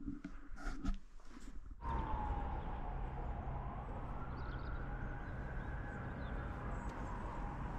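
Distant siren wailing, its pitch slowly falling, rising and falling again over several seconds, above a steady background hum. It starts about two seconds in, after a few soft clicks.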